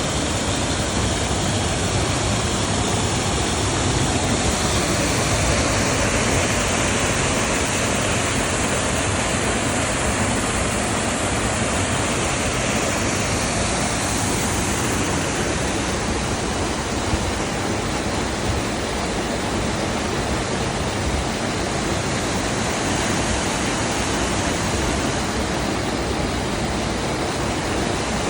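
Waterfall: falling water making a steady, loud rush with no breaks.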